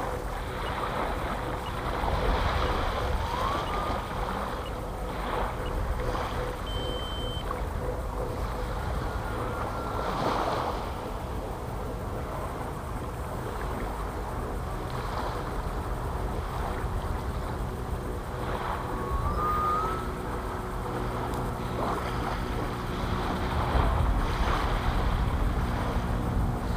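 Small propeller aircraft's engine droning steadily as it flies over, with wind noise on the microphone.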